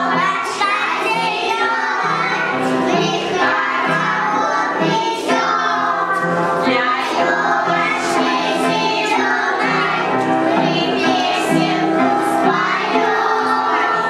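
A group of young children singing a song together over music accompaniment.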